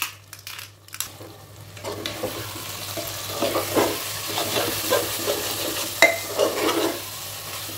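Metal spatula stirring and scraping ground spices and onion-tomato masala frying in oil in an aluminium pressure cooker, with the oil sizzling. The stirring and sizzling get louder about two seconds in.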